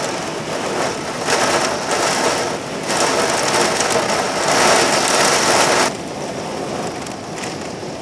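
Heavy hurricane rain and wind lashing against a window pane, heard from inside. It comes in gusting surges and eases back about six seconds in.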